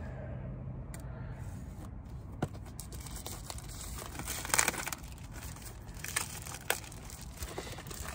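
Cardboard box packaging being opened by hand: scattered tearing and crinkling with a few sharp snaps and clicks, the loudest about halfway through.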